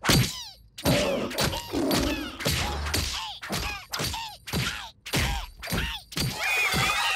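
Cartoon slapstick sound effects of a body being slammed again and again against the floor: a rapid run of heavy thuds, about two or three a second, each with a short squealing cry. Near the end, steady music takes over.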